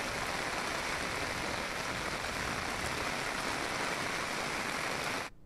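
Steady rushing of water, an even hiss with no distinct drops or splashes, cutting off sharply near the end.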